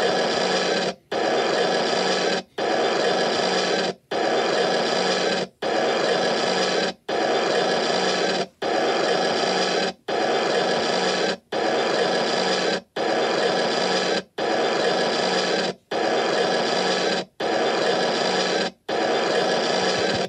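A single harsh, noisy sound effect played on a loop, repeating back to back about every second and a half with a brief cut between repeats.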